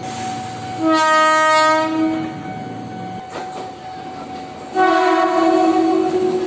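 Indonesian KRL Commuterline electric train horn sounding two blasts of about a second and a half each, one about a second in and one near the end, over a steady high hum. A short knock falls between the blasts.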